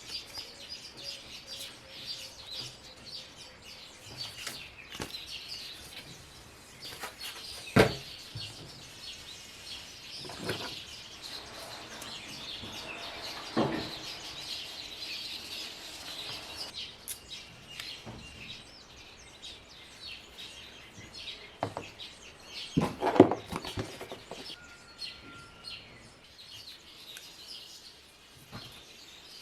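Birds chirping in the background, with a few sharp knocks and rustles of handling; the loudest knocks come about eight seconds in and in a cluster around twenty-three seconds.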